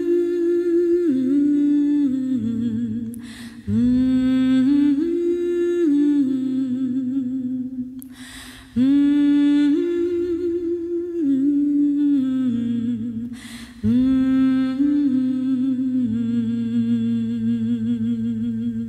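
Wordless hummed vocal melody of long held notes in phrases of about five seconds, with a short airy rush at each break between phrases.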